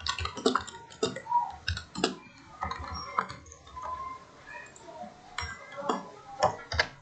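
Computer keyboard being typed on: irregular key clicks with short gaps between them.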